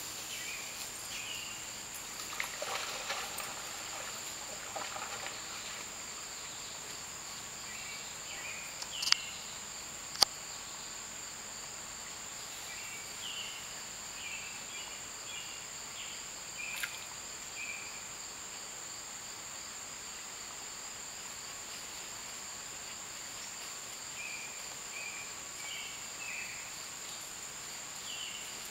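Insects chirring in a steady, high, unbroken drone, with scattered short chirps over it. Two sharp clicks stand out about nine and ten seconds in, the loudest sounds here.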